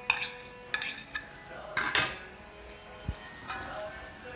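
A steel spatula and utensils clinking and scraping against an aluminium wok, a few sharp metallic clinks that ring briefly, the loudest about two seconds in, over the faint sizzle of onions and green chillies frying in oil.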